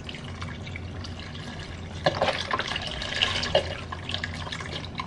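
Chicken broth pouring from a carton into a pot of diced tomatoes, a steady stream splashing into the liquid, louder from about two seconds in with a few sharper splashes.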